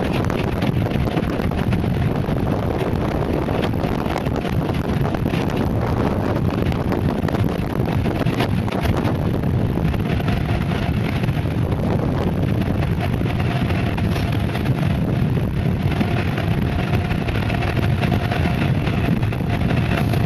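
Steady rush of wind buffeting the microphone mixed with the mountainboard's air-filled tyres rolling fast on asphalt, with scattered small clicks and rattles throughout.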